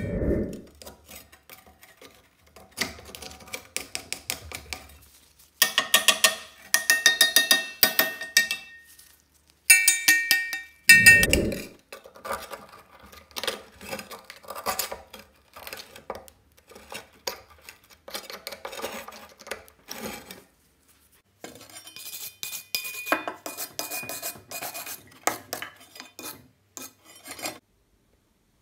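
A thin metal tool scraping and chipping caked rust and crust off a rusty steel trowel blade, in bursts of rapid scratching strokes with a metallic ring. There are a couple of dull knocks, near the start and about a third of the way in, and the scraping stops about a second before the end.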